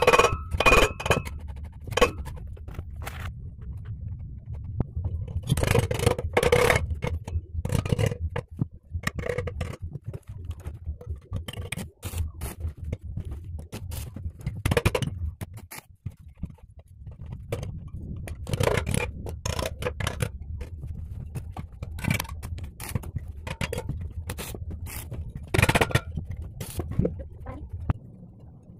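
Irregular scraping and knocking of metal tools on a steel blade being shaped by hand, over a low steady rumble.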